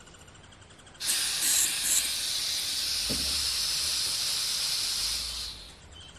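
Pressurised gas hissing steadily out of a small can or valve, starting abruptly about a second in and fading out near the end, with a faint thump partway through.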